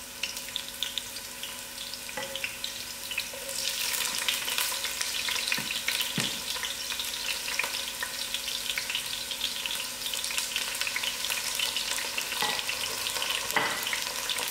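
Chopped onion frying in hot oil in a pot: a steady crackling sizzle that grows louder about four seconds in. The onion is being fried until brown.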